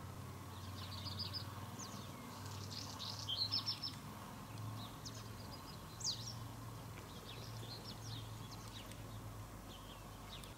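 Small songbirds chirping in short, quick calls and trills, with a cluster of louder chirps about three and a half seconds in and another sharp one around six seconds, over a faint steady low hum.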